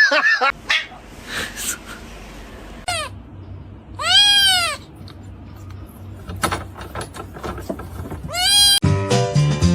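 An animal calling three times, each call rising then falling in pitch: a short call about three seconds in, a longer, louder one a second later, and a third near the end. Music comes in right after the last call.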